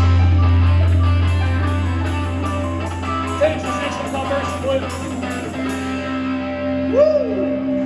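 Live rock band music: a long held low bass note fading slowly under picked guitar notes.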